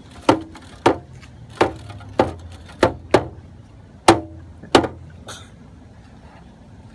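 A series of about eight sharp knocks or taps at uneven intervals over about five seconds, each ringing briefly, with a softer one after them.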